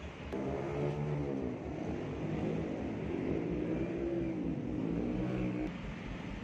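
Engine of a nearby motor vehicle running, its pitch rising and falling for about five seconds, over a low rumble.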